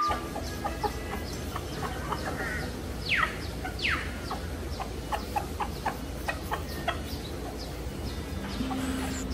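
A rooster and hen clucking in many short, quick notes, with two sharp falling calls about three and four seconds in.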